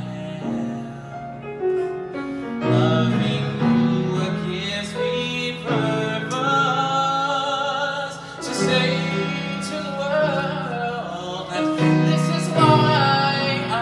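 A male singer singing a ballad in long held notes, with live piano accompaniment.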